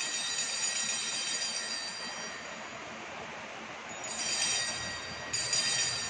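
Small altar bells (sanctus bells) ringing to mark the elevation of the chalice at the consecration. The ringing fades over the first few seconds, then is rung again about four seconds in and once more near the end.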